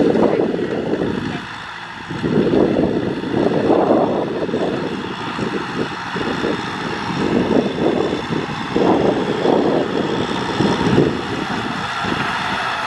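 Kubota M6040SU tractor's diesel engine running under load while it pulls a rotary cultivator through dry soil, the tiller's churning mixed in. The sound swells and falls in uneven surges, with a short dip about one and a half seconds in.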